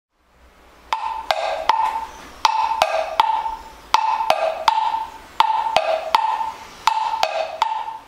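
A struck pitched percussion instrument playing a repeating capoeira rhythm: three sharp strokes per phrase, high note, low note, high note, the phrase coming round about every one and a half seconds, starting about a second in.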